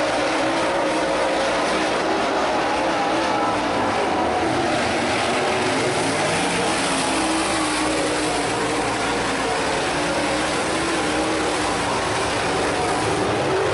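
A pack of super late model dirt track race cars running together on the track, many V8 racing engines at once, loud and steady, their pitch wavering up and down.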